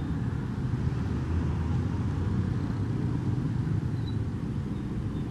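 Steady low rumble of a motorcycle ridden slowly through congested traffic, heard from the rider's own action camera, with road and traffic noise around it.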